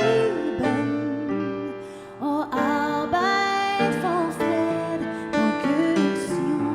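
A woman singing a song with instrumental accompaniment, her held notes wavering with vibrato, and a short pause between phrases about two seconds in.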